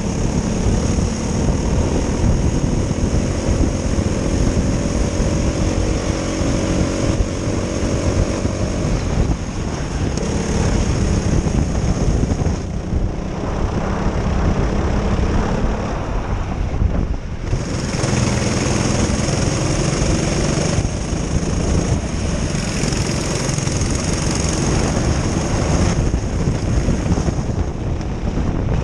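Twin Honda engines of a Prokart racing kart running hard at race speed, heard onboard with wind rushing over the microphone. The engine note climbs steadily for the first several seconds, then dips briefly twice around the middle before picking up again.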